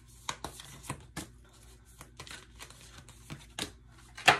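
Oracle cards being shuffled and handled: a string of soft, irregular flicks and snaps, with one sharp card snap near the end.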